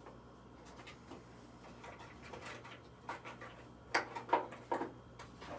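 Light clicks and knocks of makeup products and their containers being handled and set down, with a quick run of several sharper taps about four seconds in.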